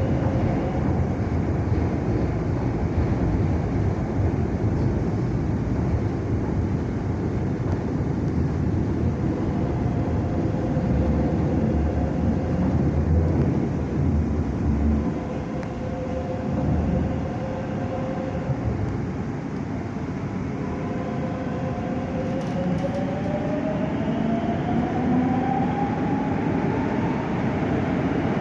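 Madrid Metro train running through a tunnel, heard from inside the passenger car: a steady rumble of wheels on rail with a faint motor whine. In the last several seconds the whine rises steadily in pitch as the train picks up speed.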